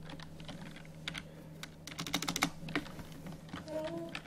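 Computer keyboard typing: irregular keystrokes with a quick run of clicks about two seconds in, over a steady low hum.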